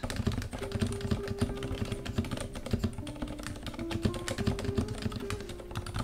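Fast, continuous typing on an IQUNIX F97 Dark Side mechanical keyboard with Cherry MX Silent Red linear switches: a dense run of soft, damped keystrokes. It is a really quiet keyboard, because the switches have a cushion at the bottom that soaks up the sound of each press.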